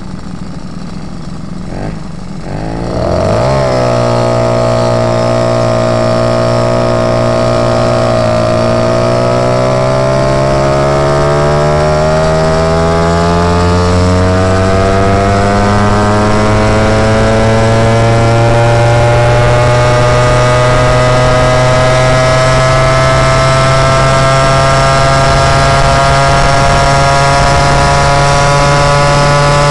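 Moped engine coming up to speed about three seconds in, holding a steady note for a few seconds, then rising slowly and evenly in pitch as the moped accelerates.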